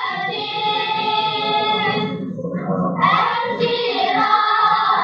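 Children's choir singing together, with a short break about two and a half seconds in before the voices come back in.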